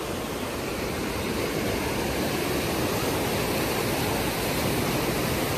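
Muddy floodwater rushing and churning through a narrow stone-walled stream channel in spate: a steady, even rush of water.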